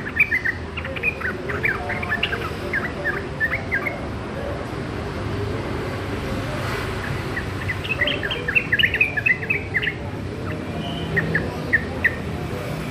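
Young sooty-headed bulbul (trucukan) practising its song: quick runs of short chirping notes, a first bout over about the first four seconds, a second from about eight to ten seconds in, and a few scattered notes near the end.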